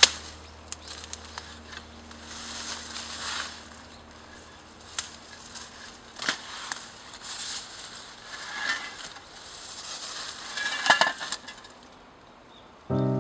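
Dry brush and weeds being handled and cleared, with irregular rustling and crunching and scattered sharp snaps and clicks, the busiest cluster of snaps near the end.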